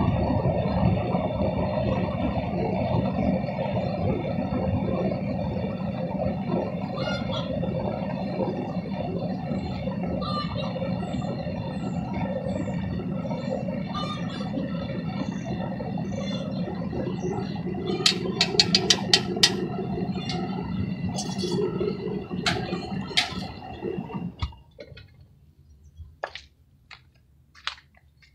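Devil Forge propane furnace burner running steadily. A quick run of sharp metallic knocks comes about 18 s in, and a couple more follow, as a steel rod works in the crucible of molten aluminium. The burner then shuts off abruptly, leaving faint bird chirps.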